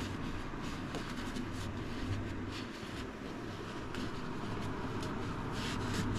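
Shop towel rubbing along a 3D printer's Z-axis lead screw, wiping off old grease in a few soft scrubbing strokes, with the strongest near the end, over a steady low hum.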